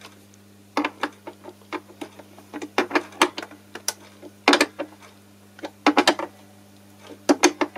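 Small wrench working the nut of a volume potentiometer on a semi-acoustic guitar's top: a string of irregular metallic clicks and taps, some in quick pairs, over a steady low electrical hum.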